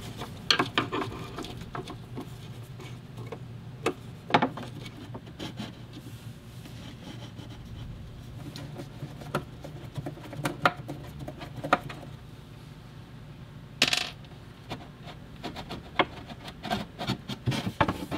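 Scattered small metallic clicks, clinks and knocks of screws and a metal fireplace frame being handled by hand, over a low steady hum.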